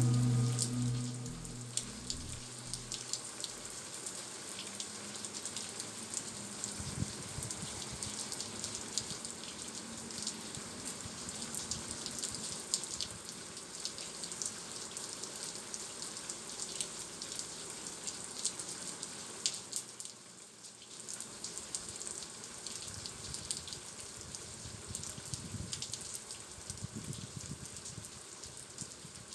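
Brine trickling and dripping down the brushwood walls of a salt graduation tower, a steady rain-like patter of fine drops, briefly quieter about twenty seconds in.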